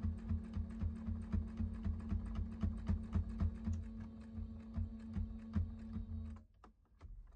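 Electric sewing machine stitching a seam: a steady motor hum under a fast, regular clicking of the needle. It stops about six seconds in, leaving a few faint clicks.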